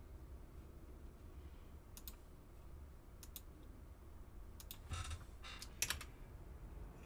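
Computer keyboard and mouse: a few separate clicks, then a quick run of keystrokes about five seconds in as a web address is typed.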